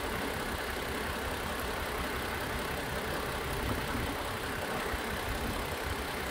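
Toyota Avalon engine idling steadily.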